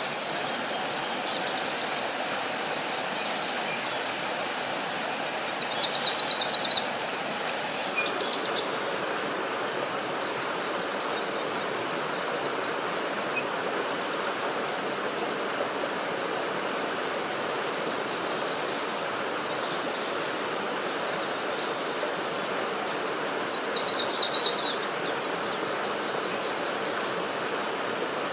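A stream flowing steadily, with bird calls over it: two loud bursts of rapid chirping, about six seconds in and again near the end, and scattered fainter chirps between.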